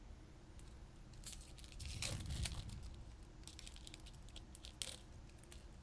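A Magic: The Gathering booster pack's foil wrapper being torn open and crinkled, in irregular crackles that start about a second in and are loudest around two seconds in, with more crinkling later.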